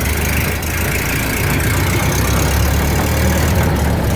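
1929 Ford Model A pickup's four-cylinder engine running in first gear with the driveline turning, carrying a racket from the running gear and a high whine that fades after a couple of seconds. The owner suspects the rear end, possibly a damaged spider gear.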